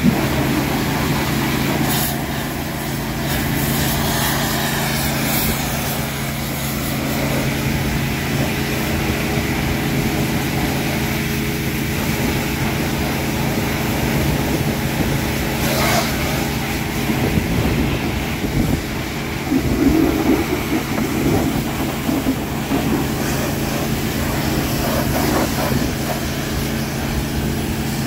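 Freightliner M2 box truck's engine idling steadily, with a couple of brief knocks, one about two seconds in and one about halfway through.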